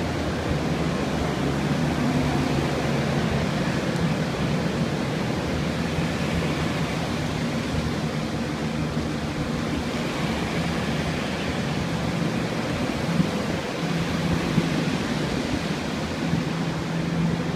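Flood-drying equipment, carpet air movers and dehumidifiers, running together: a steady rush of blown air with a low motor hum underneath.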